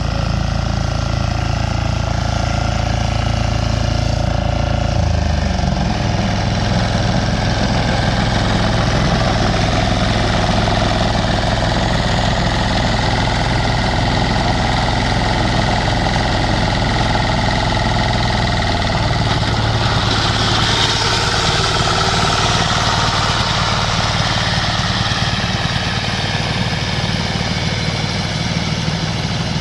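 Diesel engine of a roller-type power lawn mower running steadily, its note shifting slightly about five seconds in and again around twenty seconds in.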